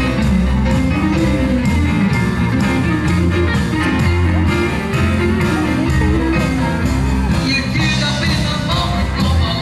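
Live rock band playing loud, steady music: electric guitar and bass guitar on a driving beat, with a tambourine shaken along.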